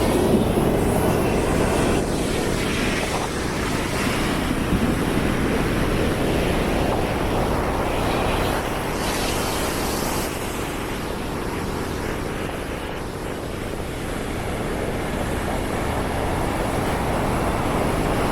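Atlantic Ocean waves breaking and washing up the beach, a steady roar with a low rumble of wind on the microphone.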